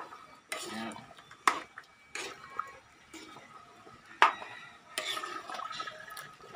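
A long-handled utensil stirring thick peanut sauce in a large metal wok. It scrapes and knocks against the pan about five times, with the loudest knock a little past four seconds in.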